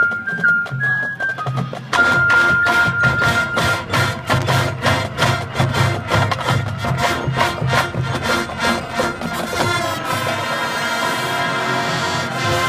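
High school marching band playing its show: about two seconds in, the full band and drumline come in loud with rapid percussion strikes under the horns, settling into a long held chord from about ten seconds in.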